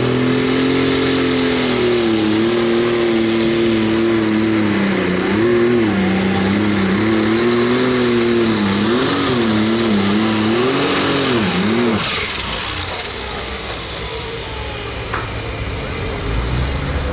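Light-limited super stock pulling tractor's turbocharged diesel engine running hard under sled load, its pitch wavering up and down repeatedly in the second half of the pull. About twelve seconds in the engine note cuts off as the pull ends, leaving a brief falling whine.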